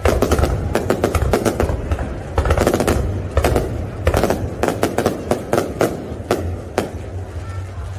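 Aerial fireworks bursting in quick succession: many sharp bangs and crackles at irregular intervals, thinning out near the end.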